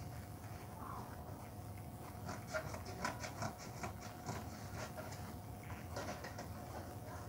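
Small irregular clicks and rustles of hands handling craft materials, over the steady hum of a ceiling fan.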